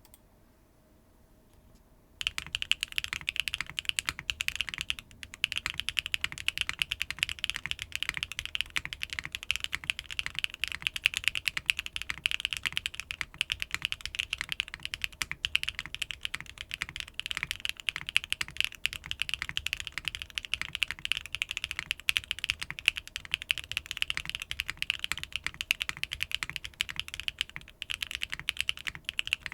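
Fast typing on a Neo 75 CU mechanical keyboard fitted with HMX Cream Latte linear switches, a carbon fiber plate, no foam and Kikobo Soju keycaps: a dense, continuous stream of keystrokes that starts about two seconds in, with a brief pause about five seconds in.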